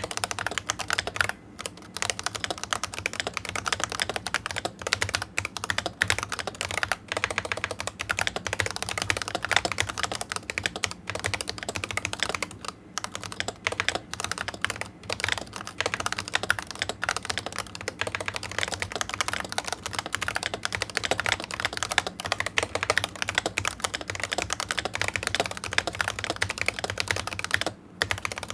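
Continuous typing on a Razer Huntsman V2 Analog keyboard with its analog optical switches: a fast, steady stream of key clacks, broken by short pauses about halfway through and again near the end.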